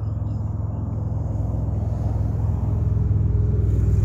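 Low engine rumble with a fine, even pulse, growing steadily louder.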